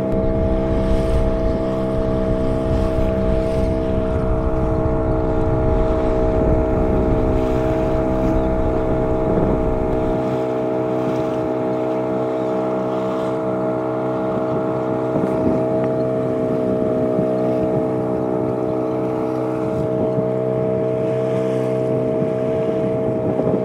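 A small open boat's outboard motor running at a steady speed. Wind buffets the microphone for the first ten seconds or so.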